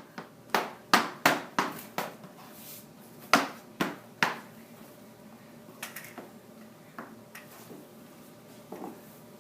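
A series of sharp knocks and thumps: several in quick succession, then a few more, then fainter ones.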